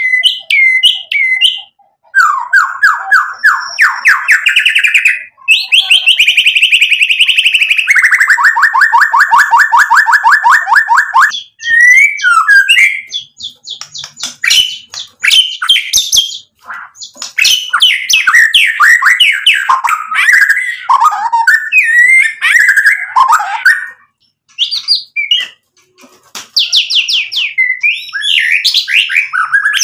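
White-rumped shama (murai batu) singing loudly. Long runs of fast repeated notes and trills, including one rapid trill lasting about six seconds, give way to varied, quickly changing phrases with a few short pauses.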